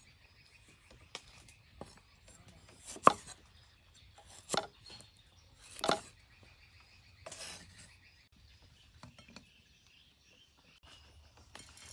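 A cleaver cutting limes into wedges on a thick round wooden chopping block. About six separate knocks of the blade against the wood come at uneven intervals over the first seven or eight seconds, the loudest about three seconds in.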